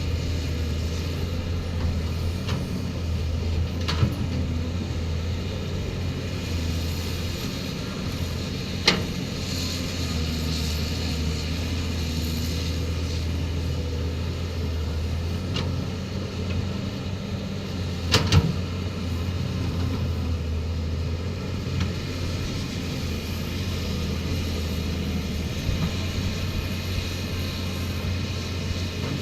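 Heavy machine's diesel engine running steadily, with a few sharp metallic knocks over it, the loudest a quick double knock about two-thirds of the way through.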